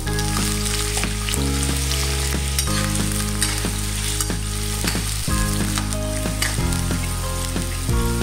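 Diced carrots sizzling as they fry in hot cooking oil in an aluminium wok, while a metal ladle stirs them with scattered clicks and scrapes against the pan.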